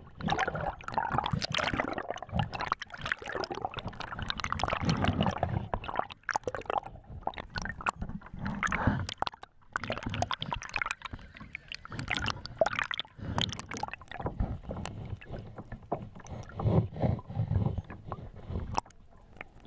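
Water sloshing and gurgling around a GoPro camera held just underwater, coming in uneven surges, with many scattered sharp clicks and crackles.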